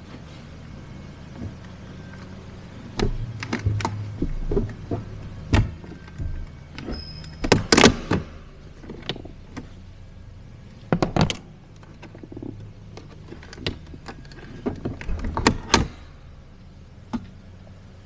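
Ford Fiesta Mk8 plastic door handle and window switch trim being levered up with a plastic trim lifting tool, in a run of sharp clicks and knocks as the retaining clips are forced and let go. The loudest knocks come a little before halfway, over a low steady hum.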